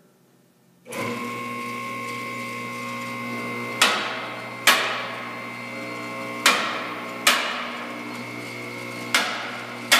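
The 220-volt electric hydraulic power unit of a TP15KCX two-post lift starts about a second in and runs steadily, raising the carriages. Over the hum come six sharp metallic clacks in three pairs, about every two and a half seconds, as the carriage safety locks drop into place.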